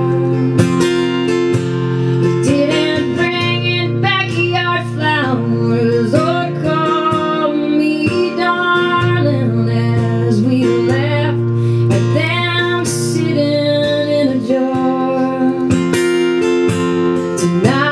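Acoustic guitar played steadily under a woman's voice singing a slow melody, a quiet folk ballad.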